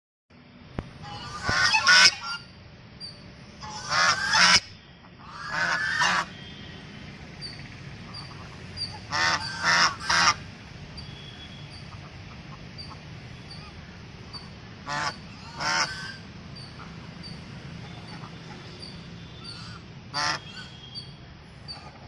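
Domestic geese honking in loud bouts of calls: several honks in the first six seconds, a cluster a little past the middle, then single honks near the end, over a steady low background hum.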